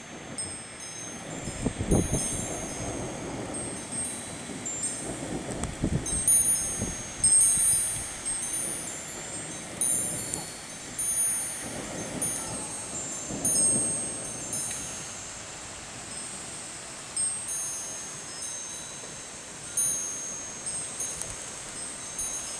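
Wind chime ringing irregularly with short, high, clear notes as the storm wind catches it. Gusts of wind rumble on the microphone.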